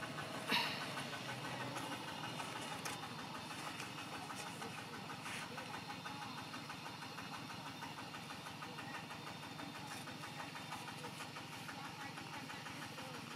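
An engine idling steadily in the background, with a few short sharp clicks over it, the clearest about half a second in.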